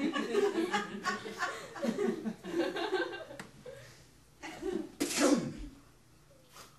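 Wordless human vocal sounds, then about five seconds in a loud, sharp vocal burst that slides down in pitch.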